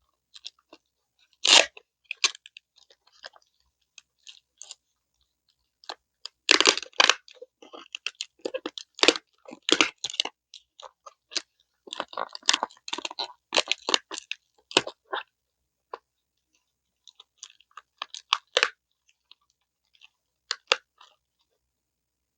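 Crinkling and crunching of a tightly wrapped shipping package being squeezed and pulled at by hand in irregular bursts, the wrapping too tough to tear open without a knife.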